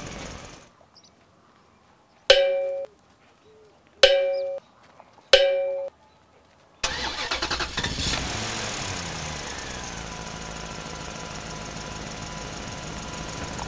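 Truck sound effects laid over the toy truck: a running engine cuts out, a horn honks three times in short blasts, then an engine cranks, starts and settles into a steady run.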